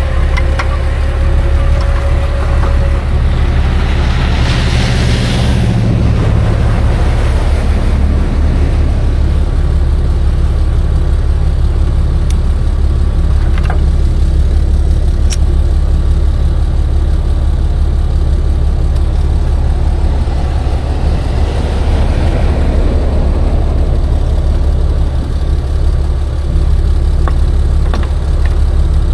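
Tow truck's engine running steadily with a deep, constant hum. A hissing rush swells and fades about five seconds in, and again a little past twenty seconds.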